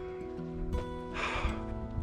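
Background music with held notes that change every half second or so. A short noisy scrape comes about a second in.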